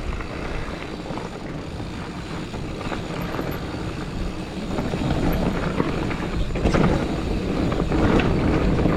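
Wind rush and rumble on the action camera, with a Giant Fathom mountain bike's tyres rolling over a rough dirt trail. It grows louder about halfway through as the bike picks up speed, and a few knocks near the end come from the bike rattling over bumps.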